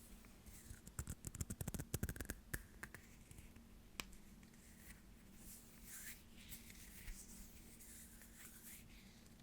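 Soft ASMR hand sounds close to the microphone: a quick run of small finger clicks and taps, a single sharper click about four seconds in, then soft swishing of hands rubbing together.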